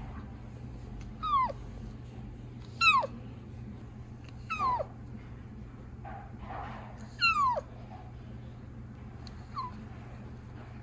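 A young orange-and-white kitten mewing four times in thin, high, peeping cries, each falling sharply in pitch, with a shorter faint mew near the end.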